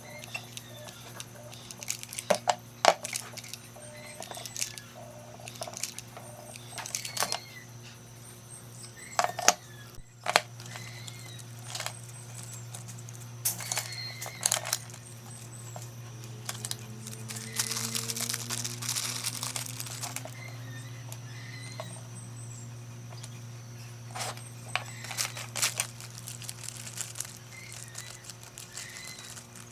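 Background music with a steady low drone, over scattered sharp clicks and taps and a longer rustling, scraping stretch about two-thirds of the way in.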